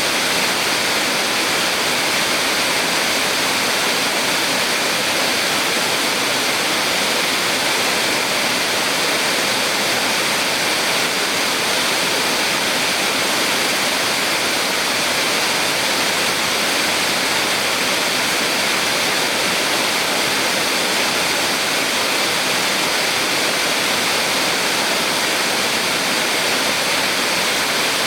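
Small waterfall on a mountain stream: a steady, even rush of falling and running water that does not change.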